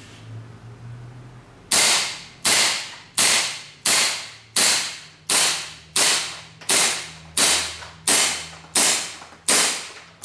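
KP-07 gas blowback airsoft pistol with a steel slide firing twelve shots in steady succession, about one every 0.7 seconds and starting a little under two seconds in. Each shot is a sharp crack as the slide cycles, with strong recoil.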